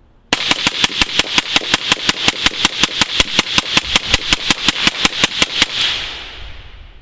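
Suppressed LMT AR-style rifle emptying a 30-round magazine in rapid fire, about five shots a second, with even spacing. After the last shot the report fades away.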